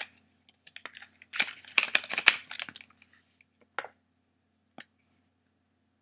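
Opening a small lipstick from its packaging: plastic crinkling and tearing for about a second and a half, with a few sharp clicks before and after.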